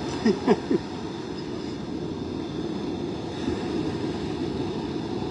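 Steady rumble of wind and surf on an open beach under storm conditions. Within the first second come three short, loud sounds, each sliding down in pitch.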